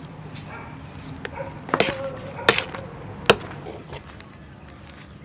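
A spoon or spatula stirring a thick paste in a metal pan, knocking sharply against the pan a few times, about two, two and a half and three and a quarter seconds in.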